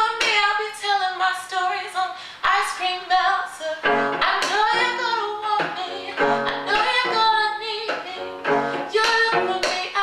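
A woman singing a song to cello accompaniment.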